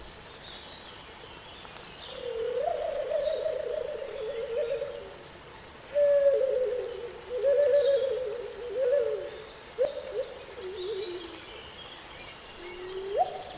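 Slow, flute-like melody of wavering, sliding notes in three phrases, with faint high bird chirps behind it.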